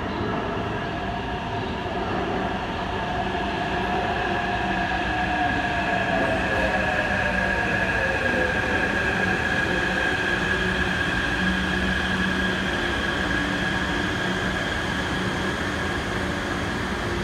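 Taipei Metro C371 train pulling into an underground station and slowing to a stop, with a running rumble. A whine falls steadily in pitch over the first half, and a steady high-pitched squeal rides over it.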